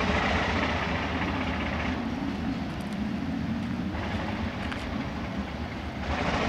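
Alco diesel locomotive at the head of a ballast train, its engine running steadily with a low hum as it approaches slowly.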